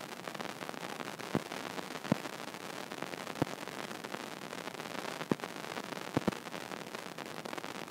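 Steady hiss of a low-quality microphone, with a few sharp clicks scattered through, two of them close together near the end.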